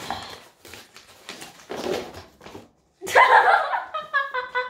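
Sheets of paper rustling and crinkling as they are handled, with giggling. The sound drops out briefly about three seconds in, then louder laughter and a voice follow near the end.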